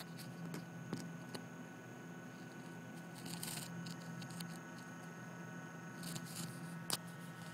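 Faint, steady electrical hum from an HO-scale Atlas RS-3 model diesel's ESU LokSound decoder: the decoder's back-EMF noise rather than the motor itself. A few sharp clicks come from the cars rolling over the track, with the loudest near the end.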